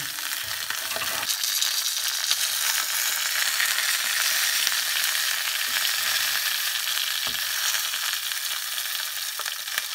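Pork joint sizzling in its fat and juices in a hot baking tin: a steady, dense crackling hiss, with a couple of faint clicks.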